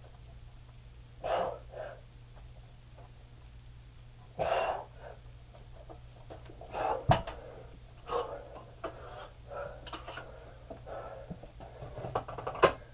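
A man breathing hard through a set of weighted overhead presses, with forceful exhales a few seconds apart that come quicker from about halfway. There is a sharp knock of the weight gear about seven seconds in and a louder one near the end, over a steady low hum.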